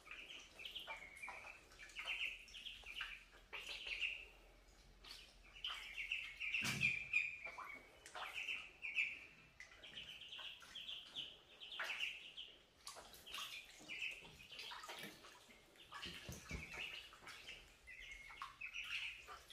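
A flock of ducklings peeping constantly, many high chirps overlapping. A few short splashes of water, the loudest about seven seconds in.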